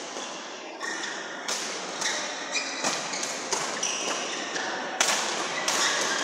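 Badminton rally: rackets smacking the shuttlecock in a quick exchange, about eight sharp echoing hits spaced half a second to a second apart, with short squeaks of shoes on the court between them.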